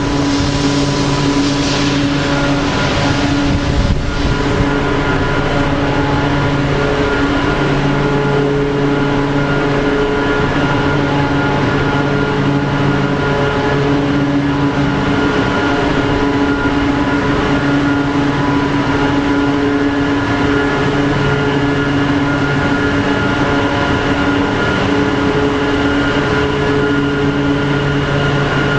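Industrial screw air compressors running: a steady, loud mechanical drone with several held hum tones, some of which drop out and come back every few seconds. A single knock sounds about four seconds in.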